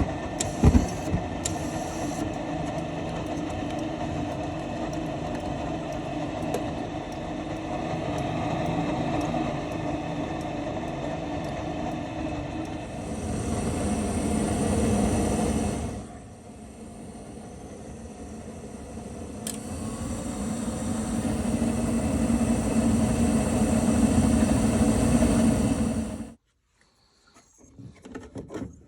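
A motor running steadily, swelling louder and dropping back a couple of times, then cutting off suddenly near the end.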